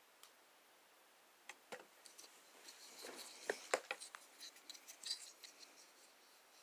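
Kershaw Labyrinth folding pocket knife being handled: a faint run of small clicks and scraping of metal and nylon parts, with two sharper clicks in the middle.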